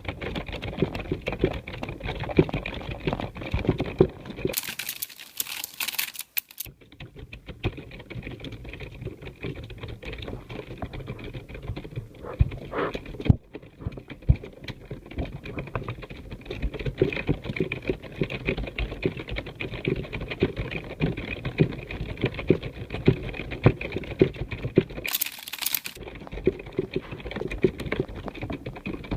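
Computer keyboard being typed on steadily: a fast, irregular stream of key clicks, with two short pauses, about five seconds in and near the end.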